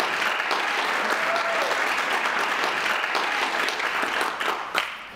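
Audience applause, steady hand-clapping that dies away near the end with one last clap, greeting a performer as he takes the microphone.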